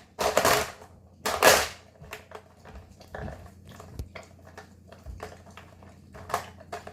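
A dog food-puzzle toy being worked by a Weimaraner puppy opening its drawers: two louder sliding or rustling sounds in the first two seconds, then a run of short, irregular clicks and knocks.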